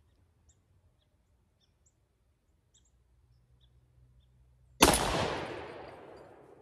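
A single pistol shot from a Thompson Center Contender with its 12-inch ported 32-20 Winchester barrel, about five seconds in, with a sharp crack followed by an echo that fades over about a second and a half. Faint bird chirps come before it.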